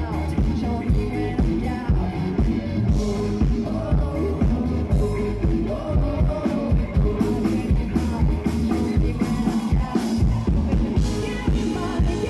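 Live band playing an upbeat pop-rock song, with drums keeping a steady beat under electric guitar and bass guitar, and a singer's voice over them.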